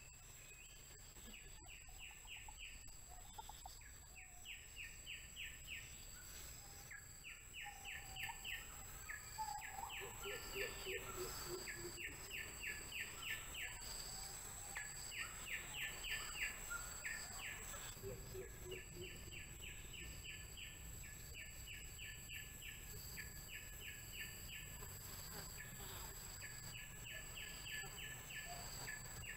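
Faint forest wildlife calls: a rapid series of evenly spaced high chirps, each series about a second long, repeated every one to two seconds over a steady high whine. A few lower calls come in near the middle.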